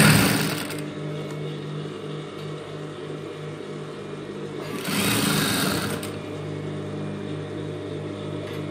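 Industrial lockstitch sewing machine stitching a fabric binding strip in two short runs, one at the start and one about five seconds in, its motor humming steadily with a pulsing beat between the runs.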